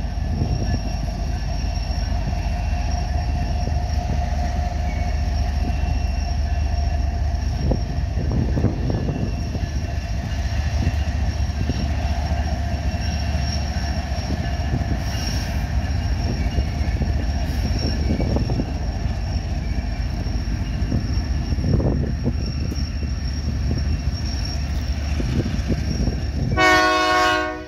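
Loaded coal train rolling past: a steady heavy rumble of the cars on the rails, with thin steady high tones above it. Near the end a short, loud pitched tone sounds, then the sound fades out.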